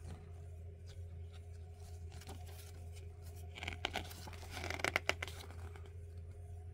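Paper pages of a CD booklet being turned by hand: a papery rustle with a few crisp flicks a little past halfway, over a faint steady low hum.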